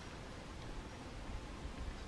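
Quiet outdoor background noise: a steady hiss with a low rumble, with no distinct sound standing out.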